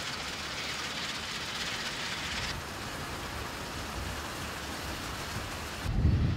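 Zmaj 136 combine harvester running steadily in the field, a continuous mechanical rumble with a hiss on top that drops away about two and a half seconds in. Wind buffets the microphone near the end.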